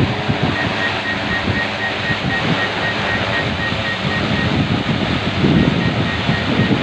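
Wind buffeting the microphone: irregular low rumbling gusts over a steady hiss.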